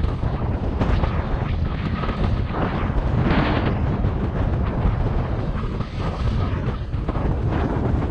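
Strong wind buffeting the microphone: a heavy, steady low rumble, with a brief brighter hiss a little over three seconds in.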